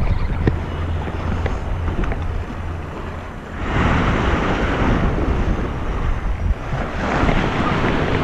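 Wind buffeting the microphone with a steady low rumble, and waves washing against a rocky seawall, the rush swelling about three and a half seconds in and again near the end. A few light clicks in the first couple of seconds.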